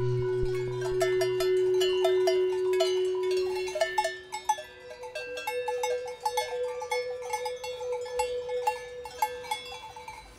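Many cowbells clanging irregularly and overlapping, worn by grazing cows on an alpine pasture, becoming quieter after the first few seconds.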